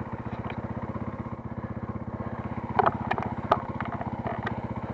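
Dirt bike engines idling steadily with an even firing rhythm, the nearest being the KTM XC-W enduro bike under the camera. A couple of brief sharp sounds stand out about three seconds in.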